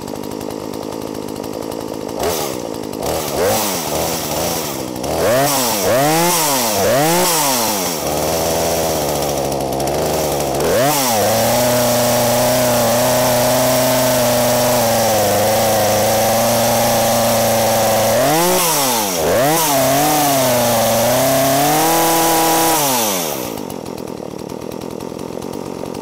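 Poulan Woodshark two-stroke chainsaw idling, then revved in a run of quick throttle blips from about two seconds in. It is then held at high revs for over ten seconds with a few dips, and drops back to idle near the end. The revving is to check that the chain oiler slings bar oil, and the saw is running fine with the choke all the way in.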